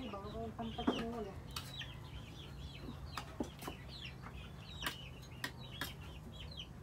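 Chickens clucking and peeping, with a steady run of short high chirps and a longer pitched call that stops about a second in. A few sharp clicks from a spoon on a plate.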